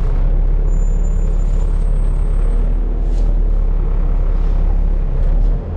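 Volvo B7TL double-decker bus's straight-six diesel running with a loud, steady low rumble, dipping slightly near the end.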